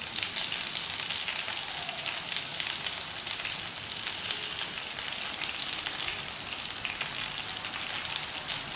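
Whole katla fish frying in oil and masala gravy in a wide pan, a steady sizzle dotted with fine crackles.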